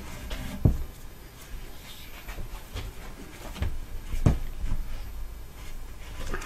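Handling noise of exhaust heat wrap being wound by gloved hands around a metal exhaust pipe: soft rubbing and rustling, with a few light knocks.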